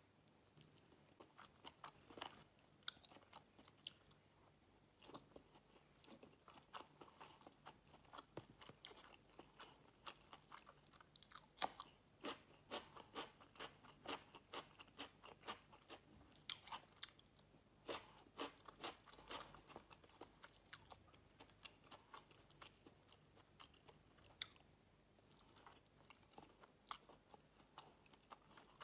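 Close-miked ASMR chewing of a dumpling: a run of quick, sharp, crackly mouth clicks and chews, thickest through the middle stretch and thinning out near the end.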